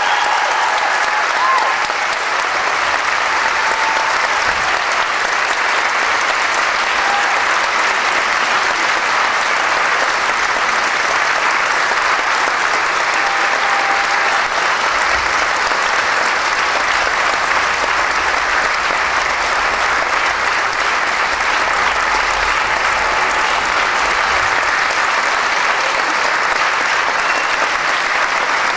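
Large audience applauding, a steady, even clapping that keeps up without a break.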